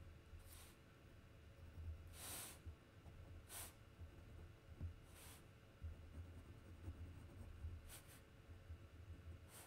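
Near silence with a low hum, broken by about six faint, short swishes of a paintbrush stroking across paper.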